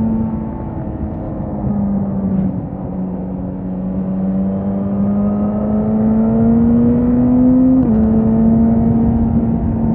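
Suzuki GSX-S 1000's inline-four engine running under way. The note dips briefly twice early on, then rises slowly as the bike accelerates and drops suddenly near the end with a gear change, settling into a steady note, over a rush of wind and road noise.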